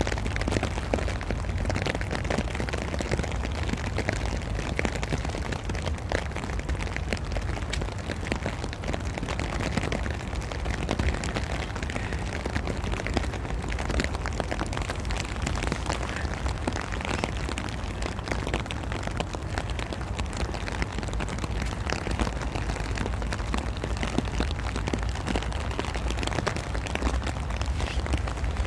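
Wind rumbling on a phone microphone over a steady patter of falling wet snow and drips, with many small ticks throughout.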